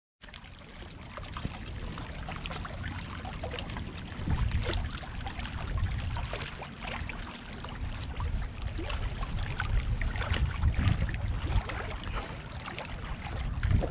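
Small waves lapping and splashing against shoreline rocks, many little irregular splashes, with wind buffeting the microphone as an uneven low rumble.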